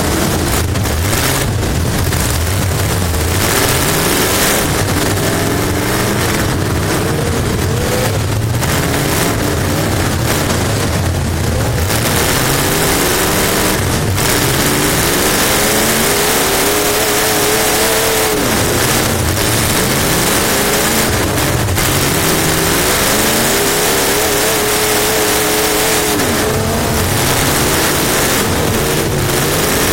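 Race car engine heard from inside the car, on the throttle and lifting: the engine note climbs and falls back again and again, holding high through longer runs around the middle and near the end, over heavy wind and track noise.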